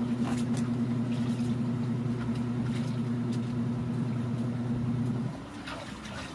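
Washing machine's electric motor running with a steady low hum, which stops about five seconds in. Light knocks and splashes from the washing sound over it.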